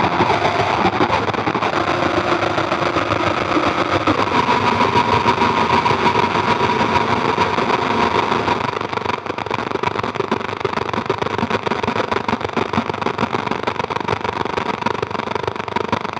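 Experimental noise drone from a Roland V-Synth XT, sounded by the CP 1919 iPad app and played by finger on a Haken Continuum Fingerboard that moves its filter, resonance and overdrive: a dense, grainy wash of noise with a thin steady high tone running through it. It drops slightly in loudness about nine seconds in.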